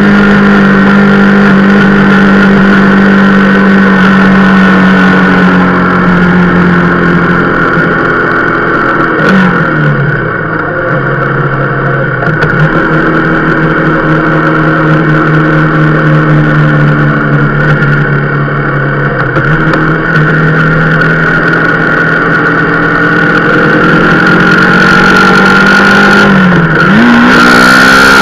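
Rieju Marathon Pro supermoto's single-cylinder engine running under way, holding steady revs, dropping in pitch about a third of the way in as the bike slows, then pulling again, with a quick rise in revs near the end.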